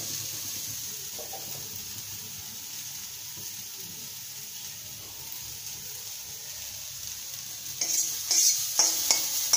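Chopped fenugreek (methi) leaves frying in a little oil in a kadai on a low gas flame, their water already cooked off, with a steady soft sizzle. From about eight seconds in, a spatula stirs and scrapes the leaves around the pan in several quick strokes.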